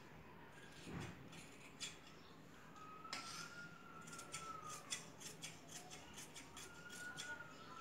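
Large tailor's shears snipping through blouse cloth along chalk lines, a run of short blade clicks that come quicker, several a second, from about three seconds in.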